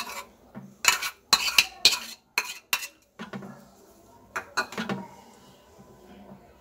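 Steel spoon scraping and knocking against a small plastic bowl as sticky candied papaya pieces are tipped out, a quick run of sharp clicks in the first three seconds, then a few lighter taps about four and a half seconds in.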